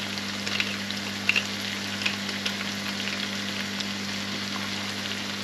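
Shallots and cherry tomatoes frying in ghee in an enamelled cast-iron casserole: a steady sizzle with a few small crackles in the first couple of seconds. A faint steady low hum runs beneath it.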